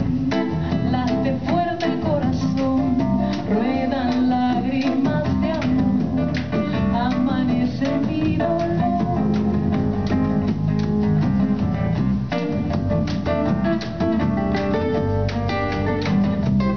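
Live acoustic band music: acoustic guitar playing with percussion hits from a drum kit and hand drums, and a woman's singing voice over it in places.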